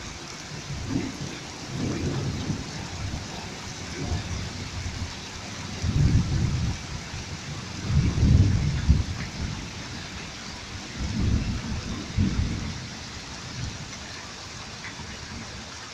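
Heavy rain falling steadily during a summer thunderstorm, with several low rumbles that swell and fade.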